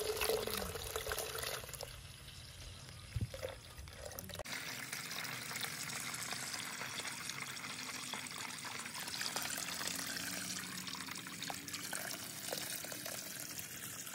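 Coconut water pouring from an opened green coconut into a plastic cup, then, after about four seconds, a steady stream of water running from a pipe into a full basin.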